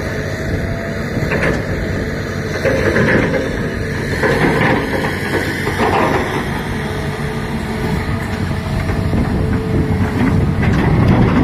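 Heavy diesel engine of a Hitachi 330 excavator running steadily under load, with irregular scrapes and knocks from rocks being loaded every second or two.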